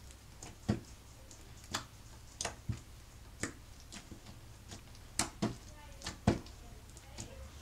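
Pink bubblegum slime with cut-up foam ball pieces mixed in, poked and squished by fingers, giving irregular sharp pops and clicks, about one or two a second.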